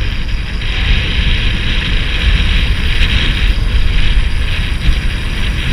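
Wind buffeting the microphone of a camera mounted on a moving tandem bicycle, a steady rumble, with the hiss of tyres rolling on asphalt.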